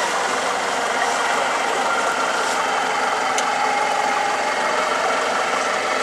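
Off-road 4x4's engine running steadily while the vehicle sits bogged in deep mud.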